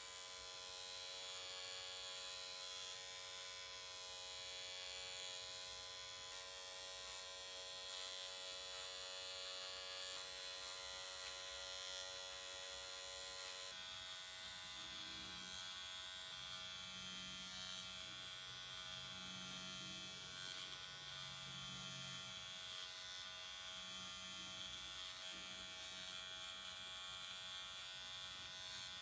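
Dr. Pen electric microneedling pen running with a steady motor buzz. Its tone changes about halfway through.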